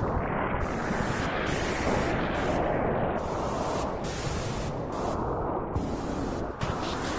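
Steady white noise, a continuous rushing hiss used to calm a crying baby by mimicking the sound heard in the womb. The highest part of the hiss drops out and returns briefly every second or so.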